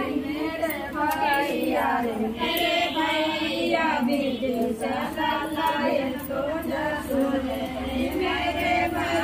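Several female voices singing a song together.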